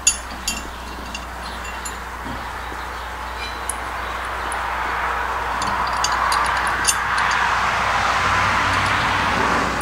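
Scattered light metallic clinks of steel washers and locking nuts being handled and threaded onto hitch bolts by hand, the loudest right at the start and a cluster about six to seven seconds in. A rushing noise grows louder over the second half.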